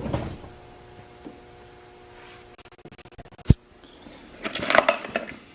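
Metal engine parts scraping and clicking as they are worked by hand, with one sharp knock about three and a half seconds in and a scratchy scrape near the end, as the cylinder is worked down onto the Honda TRX400EX bottom end.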